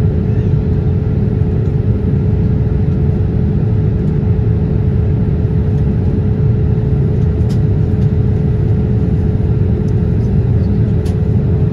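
Cabin noise of a Boeing 787 airliner in flight, heard from a window seat over the wing: a loud, steady rumble of engines and rushing air with an even hum running through it. A few faint ticks come through in the later seconds.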